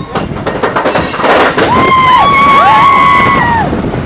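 Roller coaster train clattering and rattling along its track, then several riders screaming together: long, high, held screams overlapping for about two seconds.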